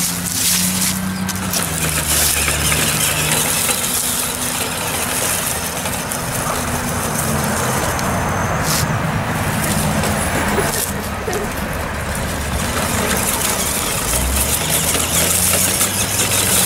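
Tamiya Lunchbox radio-controlled truck driving: its electric motor and gears whir, the pitch stepping up and down as the throttle changes, over a steady hiss of running noise.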